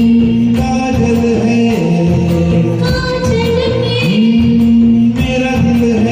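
A Hindi film-song duet sung over a backing track with a steady beat and percussion, the melody holding long notes twice.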